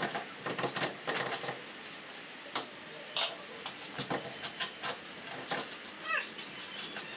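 Irregular clicks, taps and light knocks of a metal-and-glass side window frame being worked loose from a VW bus's window opening by hand, with a short squeak about six seconds in as the frame comes free.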